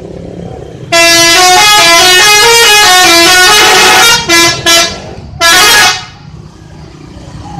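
A bus's telolet musical horn, a multi-trumpet horn, plays a loud stepping tune of several notes for about three seconds. It then gives two short toots and one longer blast.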